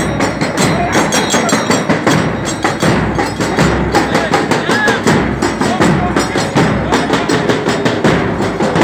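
Rhythmic percussion of a zanjeel mourning procession: steady, sharp strokes several times a second with no chanting over them.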